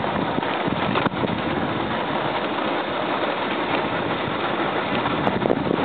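Motorcycle engine running steadily while riding over a rough dirt and gravel road, mixed with wind and road rumble. There is one sharp knock about a second in.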